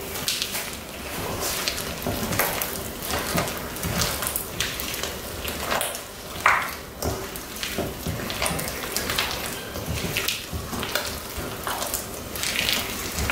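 Bare hands squeezing and mixing a sticky oat, seed and protein-powder mix bound with maple syrup in a stainless steel bowl, making an irregular crackling rustle.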